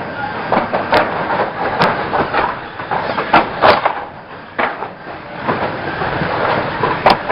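Banger racing cars on the track: a continuous rough mechanical racket broken by sharp bangs of car-to-car impacts, about a second in, near two seconds, twice around three and a half seconds and again near the end.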